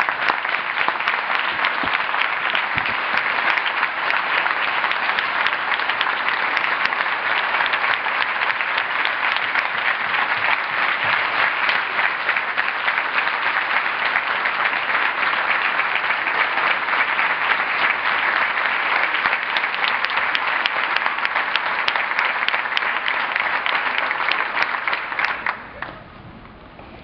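Large audience applauding steadily, a long round of dense clapping that dies away sharply about 25 seconds in.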